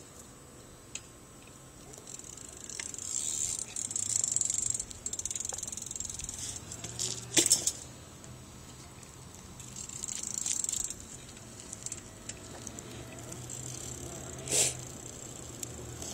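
BMX bike on asphalt: tyres hissing and the freewheel hub ticking in stretches of a second or two as it rolls and coasts, with two sharp knocks, one about halfway and one near the end, as the bike comes down on the pavement. A steady low hum runs underneath.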